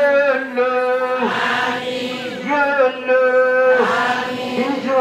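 Chanted Islamic supplication (doua): a single voice holding a near-steady pitch through repeated phrases about a second long, with brief breaks between them.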